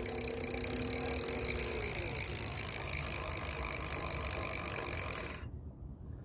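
KMADE e-bike's 36V 250W brushless geared rear hub motor spinning the lifted rear wheel at full pedal-assist speed, a steady whine over a whirring hiss. The whine winds down about two seconds in while the wheel keeps spinning, and the sound drops away suddenly near the end. The ticking from the freewheel area comes with the pedal assist; the owner cannot say what causes it.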